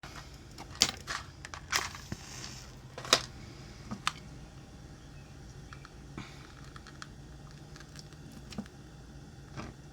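A few sharp clicks and knocks, the loudest in the first four seconds and fainter ones scattered after, like small objects being handled, over a low steady hum.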